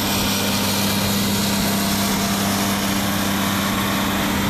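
Engine of the heavy equipment loading the sludge, running steadily with a constant hum under a wash of mechanical noise.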